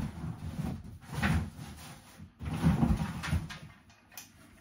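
Rummaging in a cardboard box: the box's flaps and the packed items inside rustling and knocking in a few irregular bursts, the loudest about a second in and again midway, quieter toward the end.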